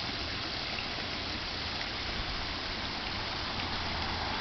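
Man-made waterfall pouring into a pond: a steady rushing hiss of falling water that grows a little louder near the end.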